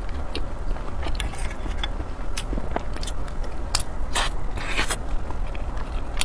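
Close-miked eating sounds: scattered sharp mouth clicks and a few short crackly bursts of biting and chewing, over a steady low hum.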